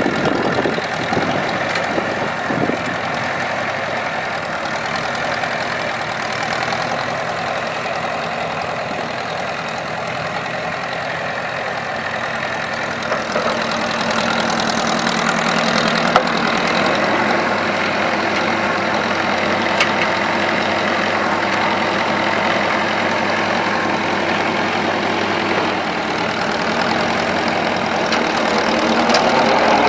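Ford 950 tractor's four-cylinder gas engine running steadily as the tractor is driven, with one sharp click about halfway through and the engine getting louder near the end.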